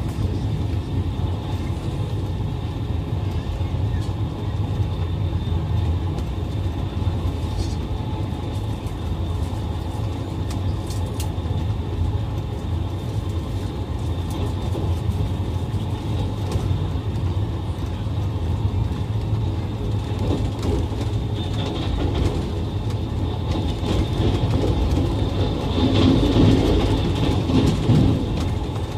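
Rajdhani Express passenger coach running on the line, heard from on board: a steady low rumble of wheels and track that swells louder near the end.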